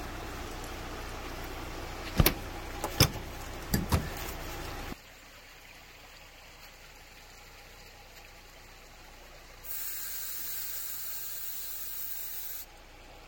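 Steady running noise of the vehicle with a few sharp clicks, then, after a cut, a steady hiss of air released for about three seconds that starts and stops abruptly: air being let out of the Jeep Gladiator's airbag suspension to lower it under a low tree.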